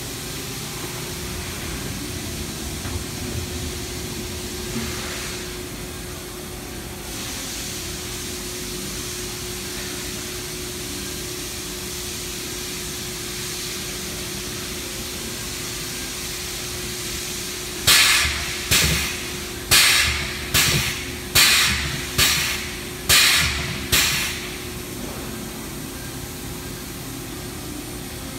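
Steady machine hum with a constant low tone. About two-thirds of the way through, eight sharp bangs, each trailing a short hiss, come in quick succession over about six seconds.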